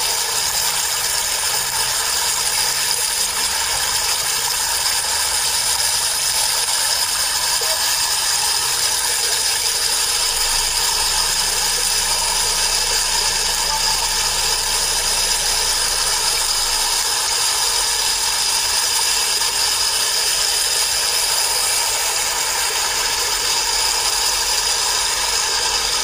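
Steady, loud rushing of muddy floodwater pouring across a road.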